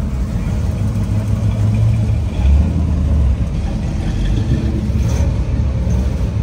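Car engine running with a deep, low rumble that shifts in level.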